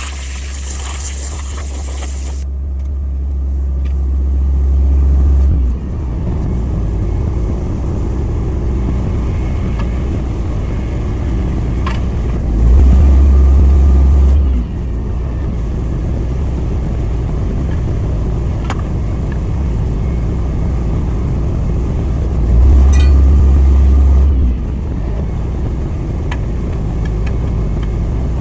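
Low machine hum from a tire shop: a tire changer's motor runs in three bursts of a few seconds each while the tire is mounted, over a steady lower hum. A short hiss of air comes at the start, along with a few light clicks.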